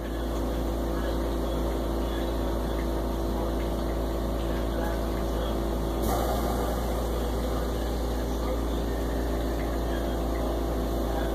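Oxygen concentrator running: a steady mechanical hum with a low drone and a few fixed tones, with a short rush of noise about six seconds in.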